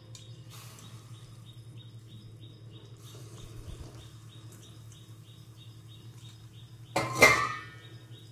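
A metal bowl clanks once against the rim of a wok as boiled noodles are tipped in, a sharp ringing clank about seven seconds in. Under it a steady low hum and a regular high chirping, about three chirps a second.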